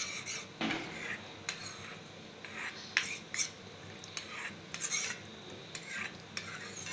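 A metal spoon stirring cornflour into water in a steel bowl, scraping and clinking against the bowl in short irregular strokes as the cornflour dissolves into a slurry.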